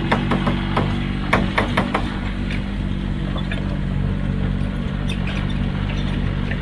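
Heavy construction machine's engine running steadily, with a run of sharp knocks in the first two seconds.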